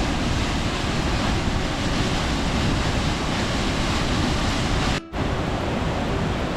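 Waterfall rushing with a steady, even roar of water; the sound cuts out for a split second about five seconds in.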